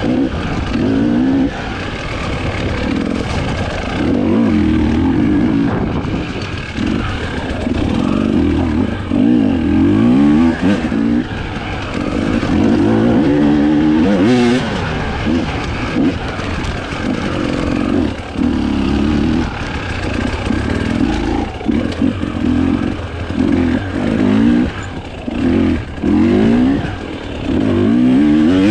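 Husqvarna TE 300i two-stroke single-cylinder enduro engine revving up and down under throttle, its pitch rising and falling again and again. In the second half it comes in short throttle bursts, roughly one a second, dropping back in between.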